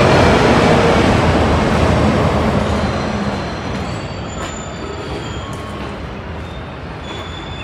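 Traffic noise: a loud vehicle passes and fades away over the first few seconds, leaving a steady low rumble of street traffic.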